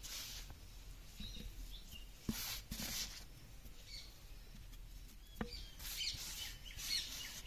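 Soft, brief rustles of powdered spice being sprinkled by hand into a clay pot, with faint bird chirps in the background.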